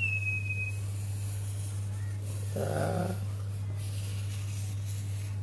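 Steady low electrical hum, with a short high tone that dips slightly at the start and a brief low voice-like sound, like a hum or grunt, about three seconds in.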